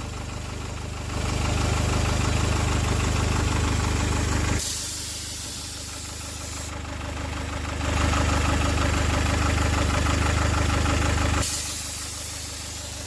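Nissan Murano's 2.5 dCi diesel engine running, a steady engine note that twice swells into a louder, deeper rumble for a few seconds and falls back, with a high hiss stronger in the quieter stretches.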